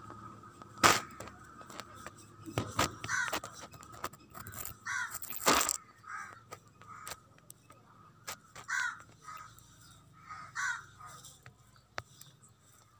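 Crows cawing in short repeated calls, with a few sharp clicks or knocks, the loudest about a second in.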